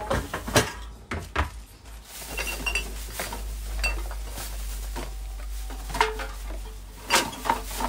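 Empty drink cans and bottles clinking and clattering in plastic bags as they are handled. There are sharp knocks, the loudest about half a second in and several more around six to seven seconds, with a few short metallic pings in between.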